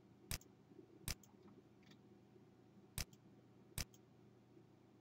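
Four sharp computer mouse clicks, unevenly spaced, over a faint low hum: points of a polyline being placed one by one.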